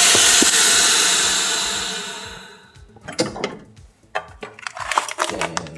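Chamber vacuum sealer venting at the end of its cycle: a loud hiss of air rushing back into the chamber that fades away over about two and a half seconds. Then comes a few clicks and crinkles as the lid is lifted and the sealed plastic bag is handled.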